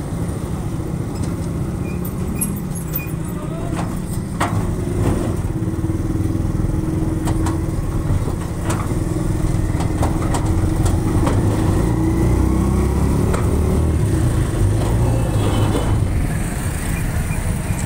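Small motor rickshaw's engine running steadily as it drives along a street, heard from the passenger seat, with scattered clicks and knocks from the ride.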